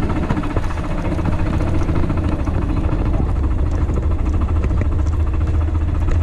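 An engine idling steadily, a constant low rumble.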